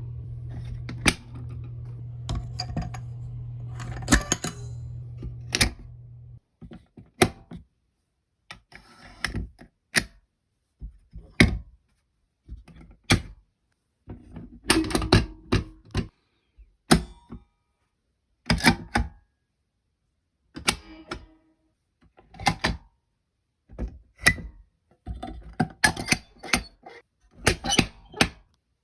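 Fire alarm pull station handles being pulled, a long series of sharp mechanical clicks and clunks, some coming in quick pairs and clusters. A low steady hum runs under the first six seconds or so.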